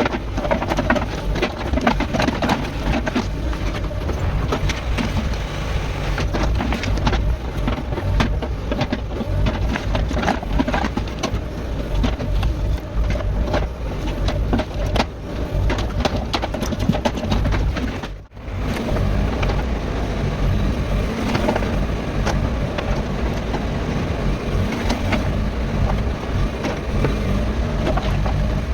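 JCB 55Z-1 mini excavator's diesel engine running steadily under load while it digs. Frequent clanks and scrapes of the bucket and stones ride over the engine. The sound breaks off for a moment about two-thirds of the way through.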